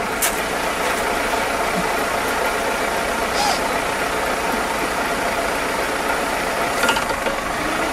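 A car engine idling steadily, with a few faint short ticks.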